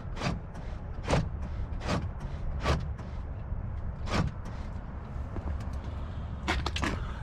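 Power door lock actuator in a 2007 Chevy Silverado's rear door clicking as the locks are cycled: a series of sharp clicks, four evenly spaced, then one more and a quick pair near the end. The newly replaced actuator is working.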